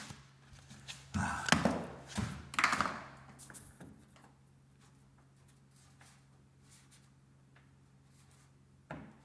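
Handling noise: a cluster of knocks and scrapes in the first few seconds, then only a low steady hum, with one more bump near the end.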